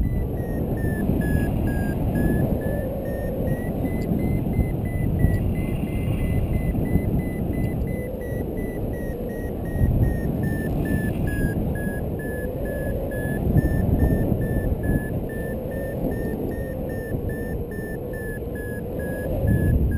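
Paragliding variometer giving its climb tone, a fast run of high beeps whose pitch drifts slowly down and up, as the glider rises in lift. Heavy wind rushing over the camera microphone is louder throughout.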